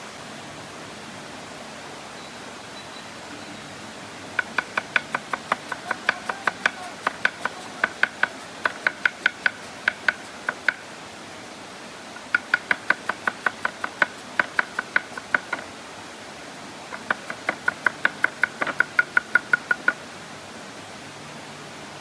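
A knife chopping on a wooden cutting board in three runs of quick, even strokes, about three or four a second, each stroke a sharp ringing knock, as the lamb liver is cut up for skewers.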